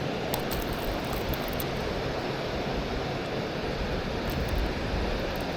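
Steady rushing of water pouring through a dam spillway, with a few faint clicks over it.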